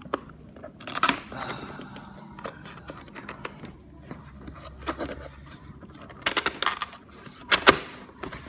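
Cardboard keyboard box and its packaging being handled: scattered scrapes, rustles and light knocks, with the loudest knock near the end.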